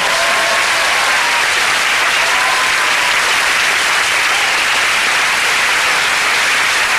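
Studio audience applauding loudly and steadily.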